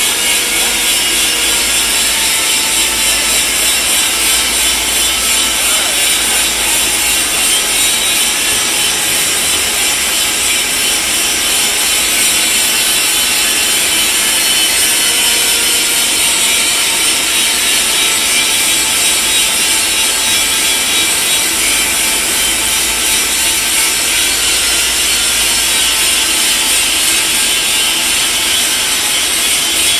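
Steady loud hiss in a welding shop while a stainless steel pipe joint is arc welded.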